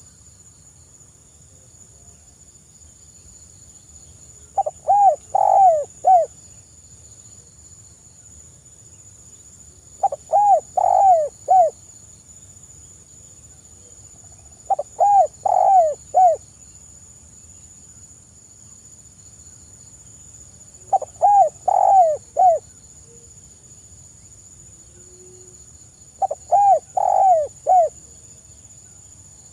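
Spotted dove cooing softly: five short phrases of several coo notes each, spaced about five to six seconds apart, over a steady high insect drone.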